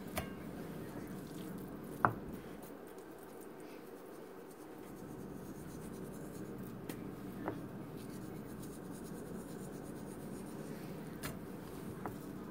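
Raw cube steak being handled on a ceramic plate: faint rubbing and squishing as the pieces are salted and flipped over. A sharp click about two seconds in and a few softer ticks later sound over a steady low room hum.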